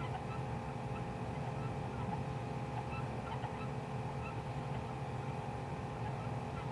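Steady hum of several fixed tones over a low rumble, with no distinct thunderclap or other sudden event.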